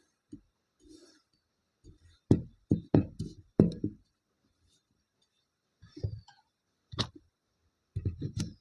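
Kinetic sand being cut and handled, a tool knocking on the surface underneath: a quick run of dull knocks about two to four seconds in, a single one around seven seconds, and a cluster near the end.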